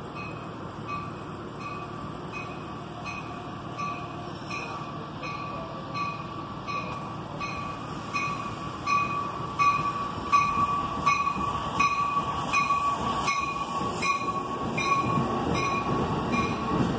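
Amtrak passenger train approaching and passing a station platform at speed: a rumble that builds, then wheel clatter over the rails as the cars rush by in the second half. A high ringing repeats about twice a second, growing louder as the train nears.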